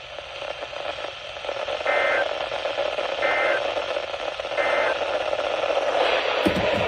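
Three short bursts of EAS end-of-message data tones, the warbling two-tone SAME signal, each a third of a second long and about a second apart. They sound over a steady hiss of radio static from poor reception.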